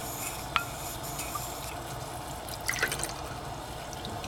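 Chopsticks stirring a cornstarch-and-water slurry in a small metal cup: a sharp click with a short ring about half a second in, a few light clicks near the middle, and liquid sounds, all over a steady hiss.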